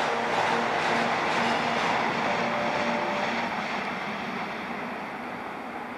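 A steady, even rushing noise with a faint low hum, slowly fading away.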